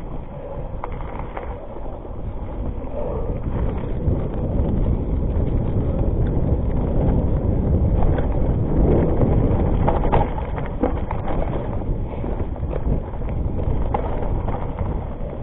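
Rockrider ST 520 mountain bike descending a rocky dirt trail: wind buffeting the microphone over the rumble of tyres on dirt and stones, with frequent knocks and rattles as the bike hits bumps.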